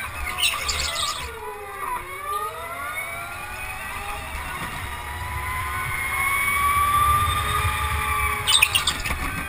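Go-kart lapping a track, heard from the driver's seat. The motor's whine falls as the kart slows for a corner, then rises steadily as it accelerates down the straight. Short bursts of tyre squeal come in the corners, once near the start and again near the end.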